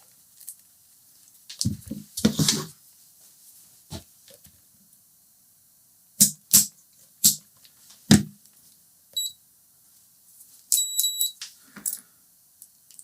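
Scattered clicks and knocks of small parts and tools being handled on a workbench, with one short high electronic beep about nine seconds in and a quick string of beeps near the end.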